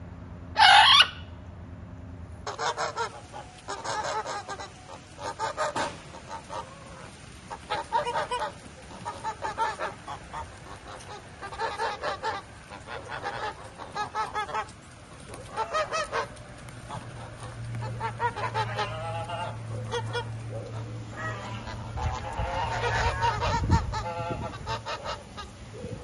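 A macaw gives one loud squawk about a second in. A flock of domestic geese then honks over and over, roughly one honk or short run of honks every second.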